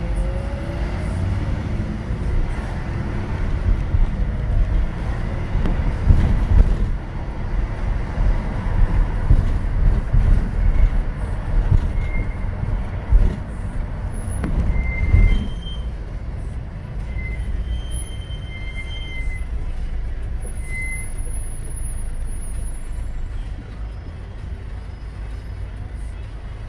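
A car driving through city traffic: a steady low rumble of engine and road noise, heavier for the first half and lighter after about fifteen seconds. A few brief high-pitched squeaks come through near the middle.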